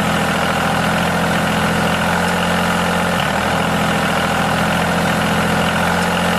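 Tractor engine idling steadily, an even low drone with a brief slight dip in pitch about three seconds in.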